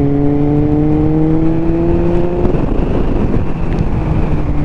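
Kawasaki Z750R inline-four running through a Leo Vince SBK aftermarket exhaust, its note rising slowly as the bike pulls. About two and a half seconds in the even tone breaks into a rough, uneven sound, then settles back at a lower pitch near the end.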